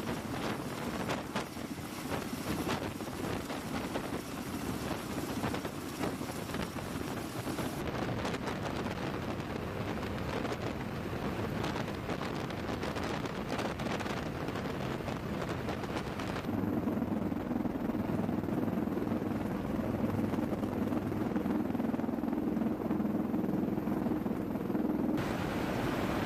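MV-22B Osprey tiltrotor's turboshaft engines and proprotors running, a steady noise mixed with wind on the microphone. It turns duller and lower about two-thirds of the way through, then brightens again near the end.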